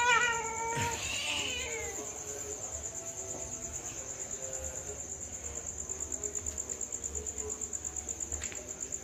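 A domestic cat meows twice in the first two seconds, each call bending in pitch, the second rising higher. A steady, rapidly pulsing high-pitched chirring of crickets runs underneath.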